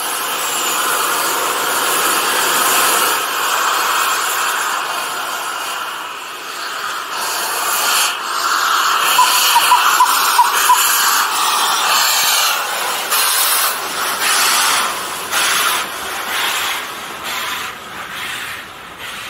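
LNER K1 class steam locomotive pulling away with a loud, steady hiss of steam venting low at its cylinders. About halfway through, sharp exhaust chuffs come in as it draws past, then fade near the end.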